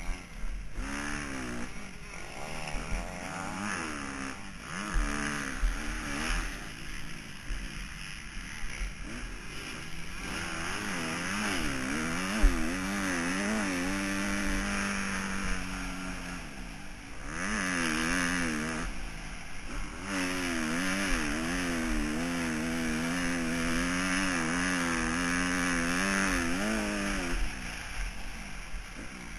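Motocross bike engine heard from the rider's helmet camera, its pitch rising and falling quickly as the throttle is worked, with wind buffeting and knocks on the microphone.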